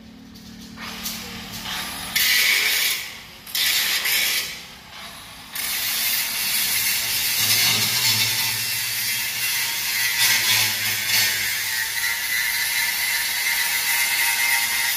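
Angle grinder working the steel sheet of a truck's fabricated front body panel: a few short bursts, then steady grinding from about five and a half seconds in.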